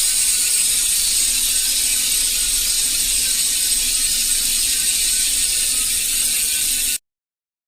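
Stan's NoTubes 3.30 bicycle freehub spinning freely, its pawls clicking so fast they merge into a loud, steady, high buzz. It cuts off suddenly near the end.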